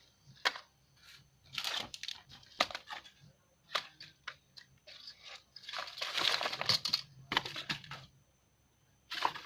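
Packaging being torn open and crinkled by hand, in irregular bursts of rustling and ripping, loudest about six to seven seconds in.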